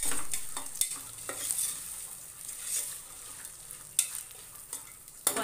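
Boiled chickpeas and onions sizzling in oil in an aluminium pressure cooker while a spoon stirs them, scraping and knocking against the pot several times, most sharply about four seconds in.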